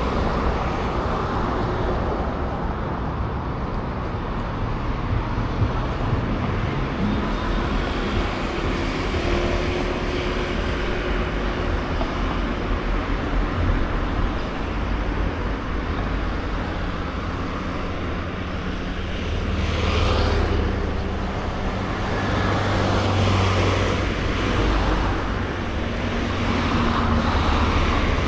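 Road traffic: cars passing over a steady low rumble, with louder passes about twenty seconds in and again near the end.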